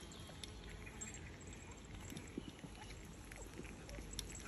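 Puppies eating raw mince from a stainless steel feeding saucer: faint, irregular wet chewing and smacking with small ticks.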